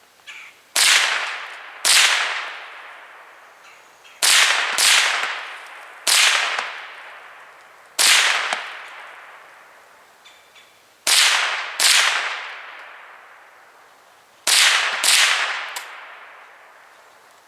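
Ruger 10/22 .22 LR semi-automatic rifle fired ten times at an unhurried, uneven pace, some shots in quick pairs. Each sharp crack trails off in an echo of about a second.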